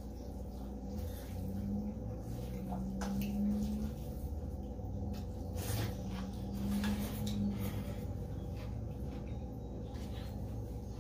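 Two people eating noodles close to the microphone: slurping and wet chewing smacks, with light clicks of a fork against a bowl, over a steady low hum.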